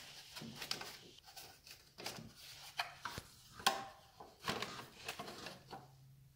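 Irregular light clicks, knocks and clatters of small metal motorcycle parts being handled and fitted by hand. The loudest knock comes a little past the middle.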